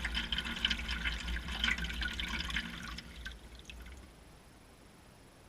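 Water splashing and dripping inside a washing machine drum, a rapid patter of small splashes over a low rumble, heard from inside the drum; it dies away to a faint hush about three to four seconds in.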